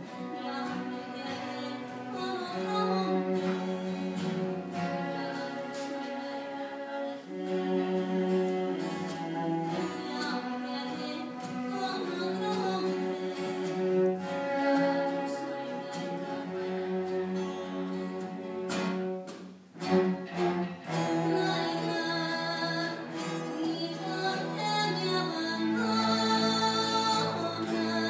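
Live acoustic music from a small ensemble: a singer with bowed strings and guitar, playing sustained notes with a short break a little over two-thirds through before the music resumes.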